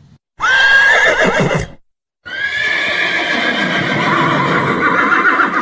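Two horse whinnies, a short one and then a longer one starting about two seconds in, each wavering in pitch.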